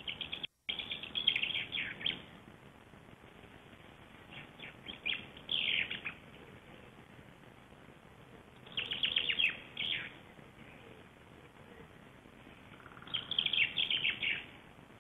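A songbird singing in the woods: a short song of rapid, falling notes, repeated four times about every four seconds.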